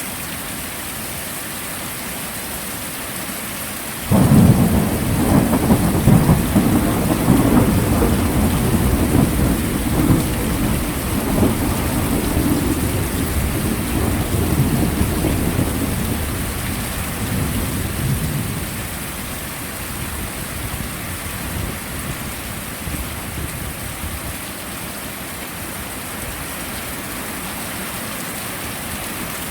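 Heavy steady rain, with a long roll of thunder that breaks in suddenly about four seconds in, rumbles for several seconds and slowly fades back under the rain.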